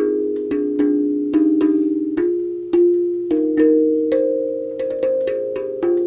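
Steel tongue drum played with the fingers in C minor: a melody of struck notes, a few each second, each ringing on and overlapping the next.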